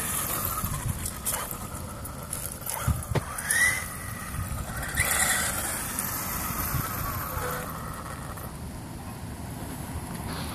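Castle Neu-Castle 2200kv brushless motor of an RC8.2e 1/8-scale electric buggy running on 6S, given short blips of throttle with a rising whine about 3 seconds and 5 seconds in.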